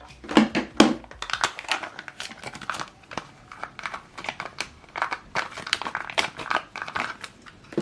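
Plastic packaging of a Canon CL-546 colour ink cartridge crinkling and tearing as it is unwrapped by hand, an irregular run of crackles.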